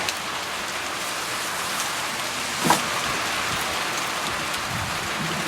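Steady rain falling and pattering on surfaces, with one sharp knock about halfway through.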